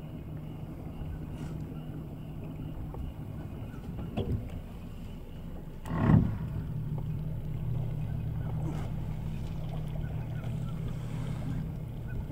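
Steady low hum of an idling boat motor, with one short, loud, low grunt about halfway through and a fainter one a couple of seconds before it.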